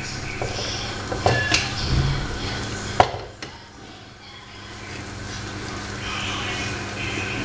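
A utensil stirring and scraping a thick mixture in a frying pan, with a few knocks against the pan, the sharpest about three seconds in.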